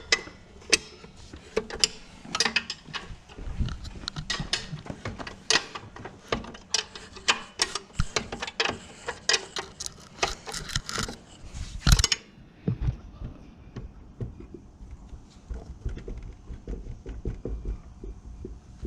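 Open-end wrenches clinking and clicking against nuts and metal as the nuts are worked loose, a rapid irregular run of sharp metallic clicks that stops after about twelve seconds, leaving quieter low knocks.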